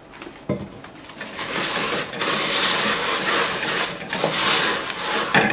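Rice bubbles (puffed rice cereal) tipped into a saucepan of melted marshmallow and butter and stirred through: a dry, crackling, crunching rustle, after a single knock about half a second in.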